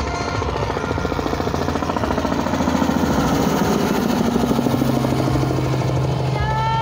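Low-flying Robinson light helicopter passing close by, its main rotor beating a fast, even chop over the piston engine. It is loudest about three to four seconds in as it goes past, then a steady low engine hum carries on as it moves away.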